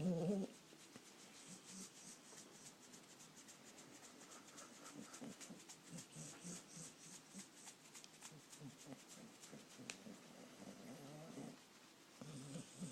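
Sleeping dog snoring softly, with wavering pitched sleep noises about half a second in and again near the end.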